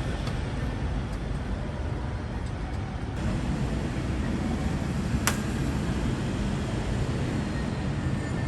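Steady low rumble of a running vehicle engine, with a single sharp click about five seconds in.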